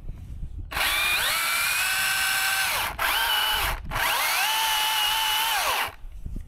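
Battery-powered chainsaw run three times, a long burst, a short one and another long one. Each time the motor whines up to speed, holds a steady pitch and winds down.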